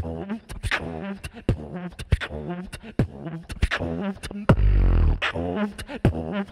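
Solo beatboxing through a handheld microphone and PA: sharp snare and hi-hat clicks in a quick beat, woven with a pitched vocal melody, and a loud deep bass note about four and a half seconds in, lasting under a second.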